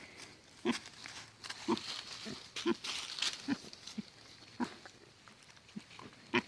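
Pig grunting repeatedly: short, low grunts about every half second to a second.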